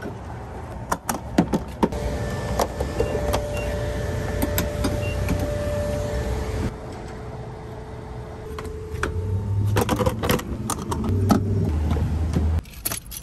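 Refuelling a minivan at a gas pump: scattered clicks and clunks of the fuel door, cap and nozzle, with a steady hum from the pump for several seconds, then the car door being opened near the end.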